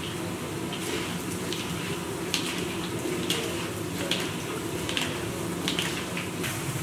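Potatoes deep-frying in oil in a kazan: a steady sizzle, with sharp ticks about once a second as a metal skimmer stirs them.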